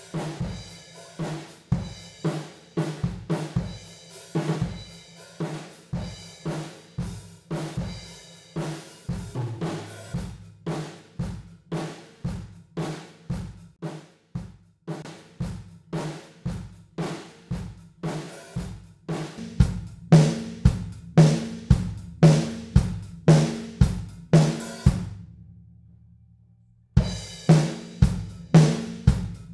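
Recorded acoustic drum kit (kick, snare, hi-hat and cymbals) playing a steady beat of about two hits a second, heavily compressed through the Acustica Audio ARCTIC compressor/saturator. About 20 s in the drums jump noticeably louder. Near 25 s the beat stops, a low ring fades out, and the beat starts again after a second or two.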